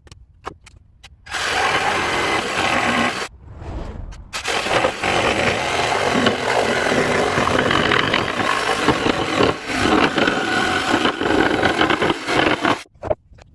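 Power tool working cherry wood, with a rough, even noise in two runs: a short one, a break about three seconds in, then a long run that stops abruptly near the end.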